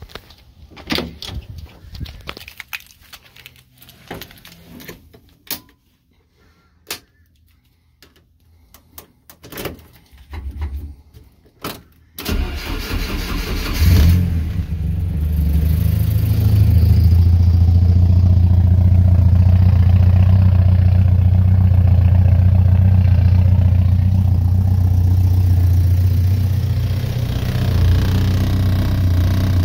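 1986 Porsche 944 Turbo's turbocharged four-cylinder engine being cold-started. A series of clicks and knocks comes first; about twelve seconds in the starter cranks, the engine catches loudly a couple of seconds later, and it settles into a steady cold idle.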